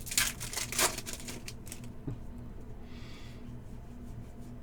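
Football trading cards handled and slid against each other: quick rustling card slides in the first second, a single click about two seconds in, and a short soft swish near three seconds, over a low steady hum.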